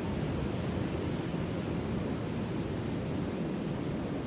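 Sea surf: a steady low rumble of waves, even throughout, with no single breaking wave standing out.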